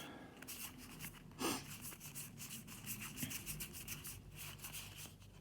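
Board game components and packaging being handled: light rustling and rubbing with many small clicks, and a short louder rustle about one and a half seconds in.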